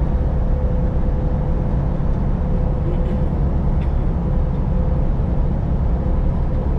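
Semi-truck engine and road noise heard inside the cab while driving: a steady low drone with a constant hum, and two faint ticks about three and four seconds in.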